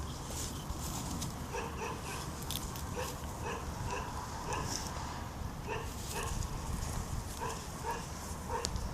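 A puppy yapping in short, repeated barks, about two a second.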